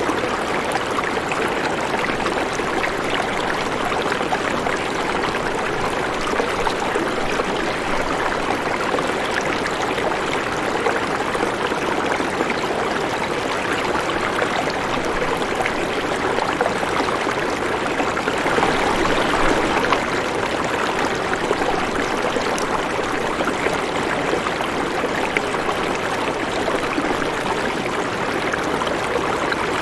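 Steady rushing of running water, an even hiss with a slight swell about two-thirds of the way through.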